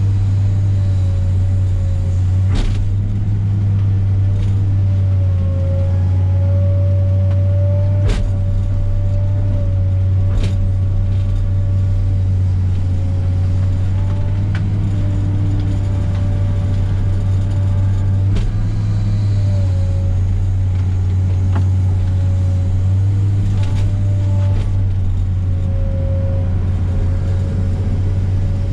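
Komatsu PC300 excavator's diesel engine running steadily under working load, with a steady, slightly wavering hydraulic whine. About five sharp knocks are heard over it.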